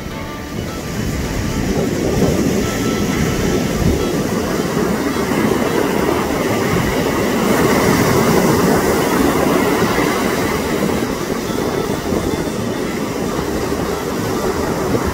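Loud, steady rush of surf and wind on a beach, swelling about a second in.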